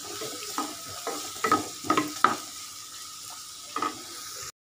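Chopped onions sizzling in hot oil on high flame while a spatula stirs them, scraping and knocking against the pan several times. The sound cuts off suddenly near the end.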